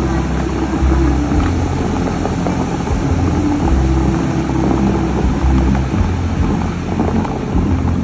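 The Dubai Fountain's water jets hissing and splashing, over low, sustained notes of the show's music from loudspeakers.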